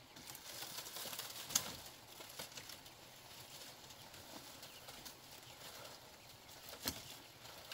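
Dry woven bamboo rustling and creaking as a bamboo panel is handled and fitted to a post. Two sharp bamboo clacks, one about a second and a half in and the louder one near the end.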